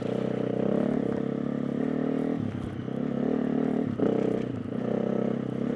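KTM 350 EXC-F dirt bike's single-cylinder four-stroke engine revving up and down under riding throttle, with brief throttle-offs about two and a half seconds in and again at four seconds.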